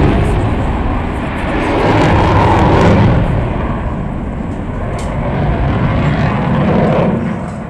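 Very loud jet noise from a Eurofighter Typhoon FGR4 flying its display, the twin Eurojet EJ200 turbofans a rushing roar that swells and eases twice, then falls away near the end.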